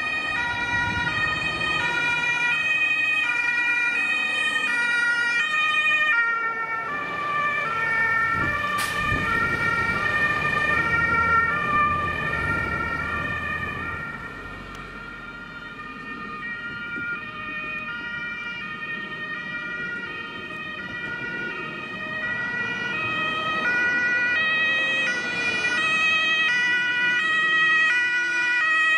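German two-tone emergency sirens (Martinshorn) on fire service vehicles, alternating high and low tones, at times two sirens sounding over each other out of step. A heavy truck engine rumbles past underneath from about six seconds in; the sirens fade somewhat past the middle, then grow louder again near the end as another vehicle approaches.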